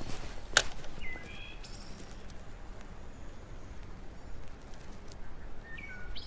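A few short bird chirps, one group about a second in and another near the end, over a steady low outdoor background, with one sharp click about half a second in.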